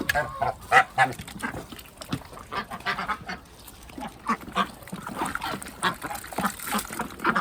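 Domestic ducks quacking and a goose honking: a busy run of short calls, two or three a second.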